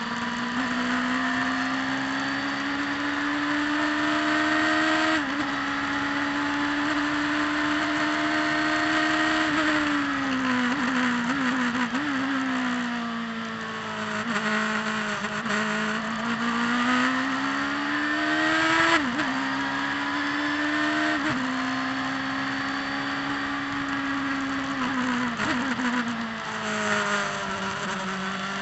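Turbocharged Saker sports car's engine at racing speed, heard from inside the cockpit. Its pitch climbs under acceleration and drops sharply at gear changes about five, nineteen and twenty-one seconds in, falls away under braking and downshifts from about ten to thirteen seconds in and again near the end, then climbs once more.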